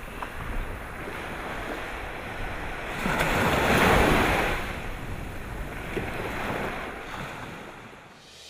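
Ocean surf: waves washing in, one swelling to its loudest about four seconds in and a smaller one later, fading out near the end.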